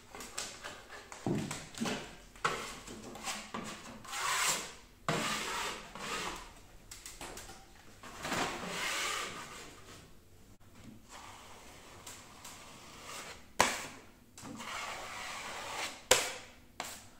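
Broad metal taping knife scraping dried joint compound off a reinforced plasterboard corner tape to take off the small ridges of excess, in a series of uneven rasping strokes. Two sharp knocks come in the last few seconds.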